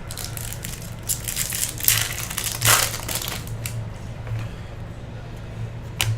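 Trading-card pack wrappers crinkling in a run of rustles, loudest about two and a half seconds in.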